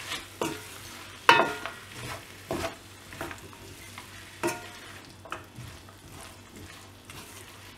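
Wooden spatula stirring and scraping mushrooms, potatoes and cashews around a wok, with a low sizzle of frying in oil underneath. The scrapes come in short strokes about once a second, the loudest about a second in and again a little past the middle.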